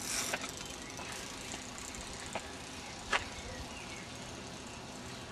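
Faint, steady outdoor background noise with a few short, sharp clicks, the loudest about three seconds in.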